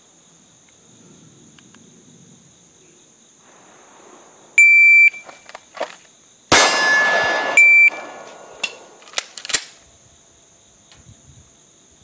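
A shot timer's start beep, then a Smith & Wesson M&P pistol firing in a draw-from-the-holster drill. There is a loud blast lasting about a second, another short beep, then three sharp cracks over the next second.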